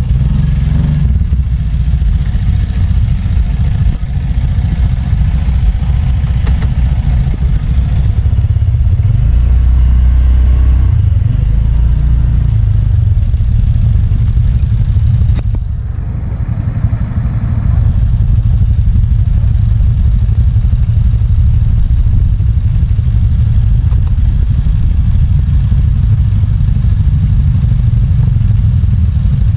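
Motor scooter engines running, a loud steady low rumble with a brief dip about sixteen seconds in.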